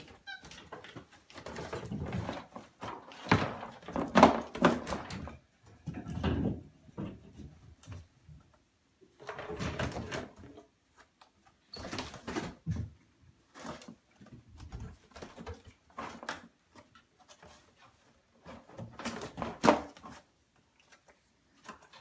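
Capuchin monkeys handling a toy tool bench: irregular bouts of knocking, clattering and rattling with short quiet gaps, loudest about four seconds in and again near the end.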